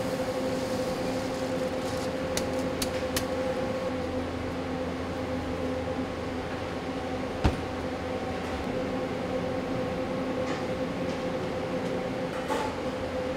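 Large induction-heated stir-frying machine running as it turns and stirs a batch of fried rice, its motor humming steadily. A few light clicks come about two to three seconds in, and one sharp knock about halfway through.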